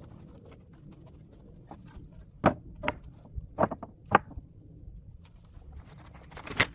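A handful of sharp knocks and clicks, about five spread irregularly, over a low steady background.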